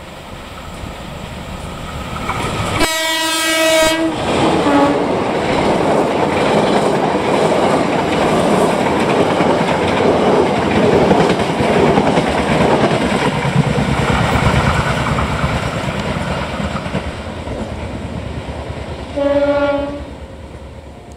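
KAI diesel locomotive hauling the Progo passenger train passing at speed. It sounds its horn for about a second roughly three seconds in, with a short extra note just after. Then comes the rumble and clickety-clack of the carriages going by, fading as the train pulls away, and another horn blast near the end.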